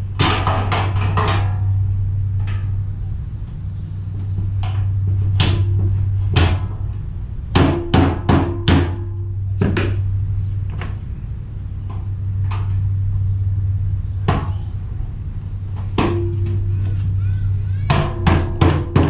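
Rubber mallet knocking rubber feet onto the hollow metal legs of a Weber Spirit II E-310 grill frame. The knocks are scattered, some in quick runs of three or four, and the leg gives a short metallic ring after some blows. A fast run of blows comes near the end.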